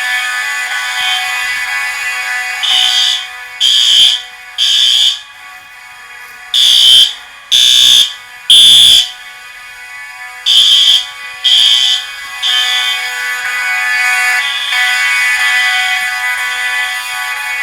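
Fire alarm horn blaring in the temporal-three evacuation pattern: three half-second blasts, a pause, repeated three times, during a fire alarm system test. A steady, many-toned alarm sound carries on underneath and continues after the blasts stop.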